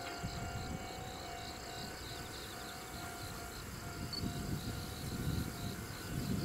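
Insects chirping in a steady repeating rhythm, with wind gusting on the microphone in low rumbles that grow stronger near the end.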